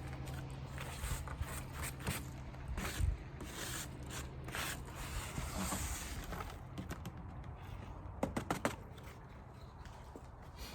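Irregular scraping and light knocks from beehive parts being handled as dead bees are cleared away, with a quick run of sharp clicks about eight seconds in.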